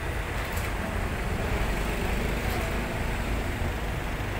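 Slow, heavy road traffic passing close by: the engines of a passenger jeepney, a van and cars running at low speed in a steady rumble.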